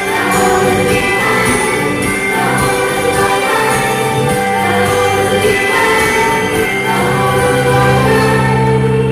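Idol-pop song with a group of voices singing over the backing track, with long held notes near the end.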